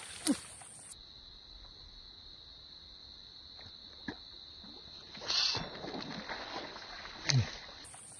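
A soft frog lure plopping and splashing on the swamp water as it is cast and worked, a few separate plops seconds apart, the loudest a deep falling plop near the end. A faint steady high whine runs underneath.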